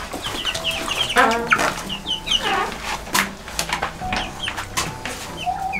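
A flock of young chickens clucking and giving many short, high peeping calls, with scattered sharp clicks and taps among them.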